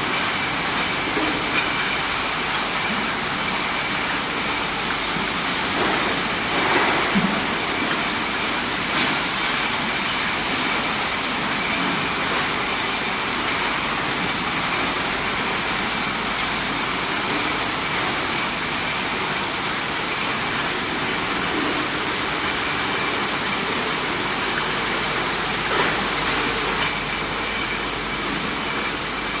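Bottle decapping and washing machinery running: a steady hiss with a faint high whine and a few brief knocks.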